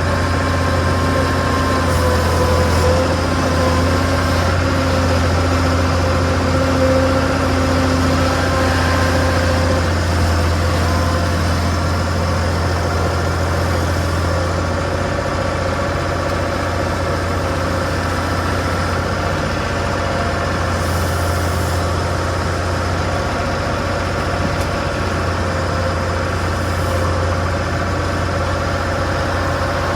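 Skid steer engine running steadily at an even speed, with a strong low hum.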